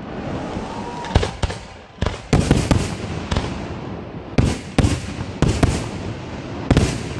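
Aerial firework shells bursting: about a dozen sharp bangs in quick, irregular succession, each trailing off in a rumbling echo.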